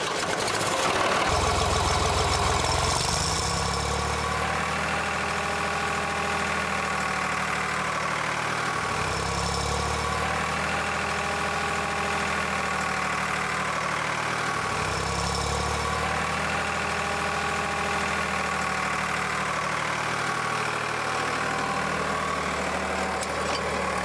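Farm tractor engine started with the key and then running steadily, its note shifting a few times.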